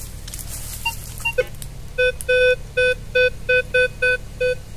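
Metal detector beeping on a buried metal target: repeated electronic beeps of one steady pitch, some short and some drawn out, about three a second, starting about two seconds in, with a few fainter, higher blips before them.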